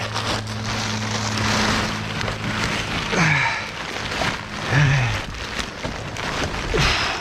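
Crinkling and rustling of plastic house wrap and construction debris being pushed and packed into a loaded truck, with a steady low hum during the first few seconds.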